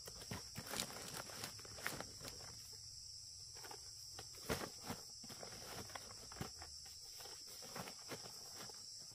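Irregular snaps, crackles and rustles of someone moving through forest undergrowth, over a steady high-pitched drone of insects.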